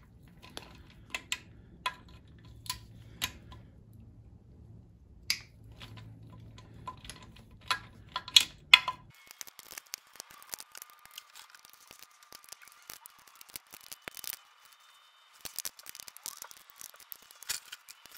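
Torque wrench clicking as the sump bolts are torqued to 15 Nm: sharp single clicks every half second to a second, the loudest cluster a little past halfway. About halfway through the low hum behind them stops and fainter, quicker ticking goes on.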